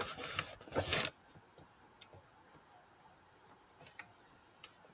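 A short rustle, then a few faint, scattered clicks over near quiet.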